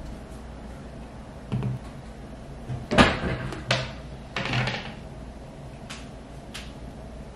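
A glass-jar electric mini kettle and a cutting board set down on a kitchen countertop. A knock comes first, then a sharp clatter about three seconds in, another knock and a brief sliding sound, then a few light taps.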